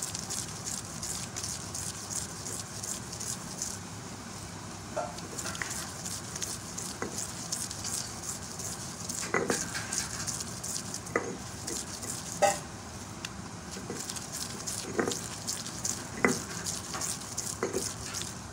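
Stone roller of a sil batta dragged again and again over minced beef on the flat grinding stone: a steady run of short scraping strokes, with a few sharper clicks of stone now and then.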